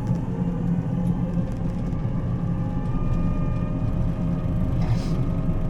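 Combine harvester running steadily as it travels down the road: a low engine drone with faint steady whining tones above it. A brief hiss comes about five seconds in.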